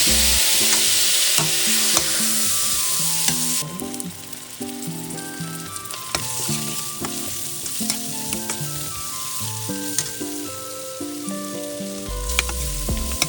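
Onion, tomato paste and flour frying in oil in a pot, sizzling with the clicks and scrapes of a utensil stirring. The sizzle is loud for the first few seconds, then drops off sharply. A soft background melody runs underneath.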